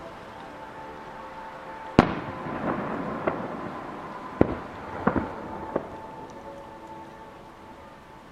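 Aerial firework shells bursting: one sharp, loud bang about two seconds in, then five or six smaller bangs over the next few seconds, each trailing off in a short echo.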